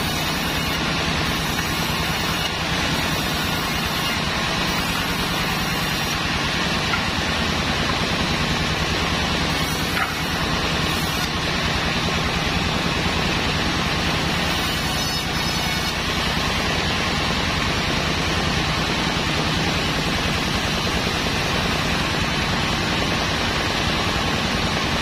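Large sawmill band saw running steadily while Sonokeling rosewood boards are fed through and ripped, a dense, constant machine noise with a low hum underneath.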